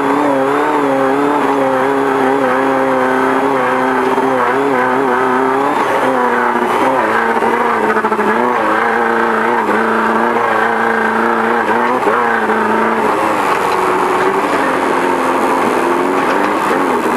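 Beetle-based off-road desert race car's engine running hard, heard from inside the car, its revs wavering up and down continuously with a few larger drops and climbs.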